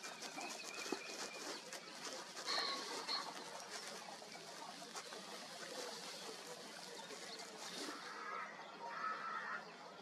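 Faint outdoor background with a few short bird calls: a pair of high notes about two and a half seconds in and a couple more calls near the end.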